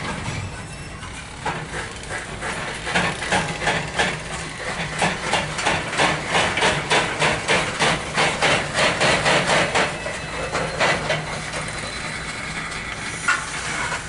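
Loaded coal train's hopper cars rolling past, steel wheels clacking over the rail joints in a regular rhythm of about three clacks a second, loudest through the middle, over a steady low hum.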